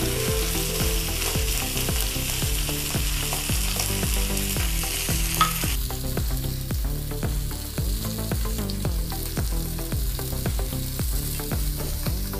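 Masala-coated Indian mackerel sizzling in oil on a hot tawa. The sizzle drops noticeably about halfway through.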